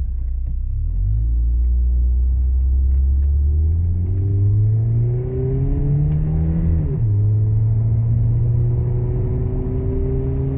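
Chevrolet S-10 pickup's engine through a Flowmaster side-dump exhaust under hard acceleration: the revs climb for about six seconds, drop sharply at an upshift about seven seconds in, then climb steadily again.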